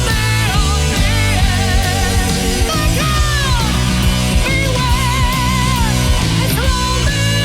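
Heavy rock music, a distorted electric guitar lead playing bends and vibrato over a dense, steady bass and drum backing.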